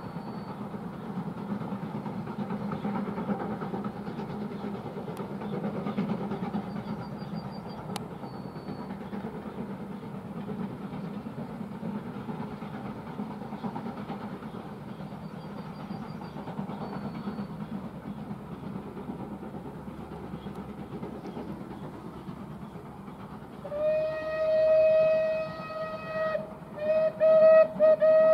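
Distant steam-hauled passenger train running along, a low steady rumble. Near the end the steam locomotive's whistle sounds loudly: a long blast, a couple of short ones, then another long blast.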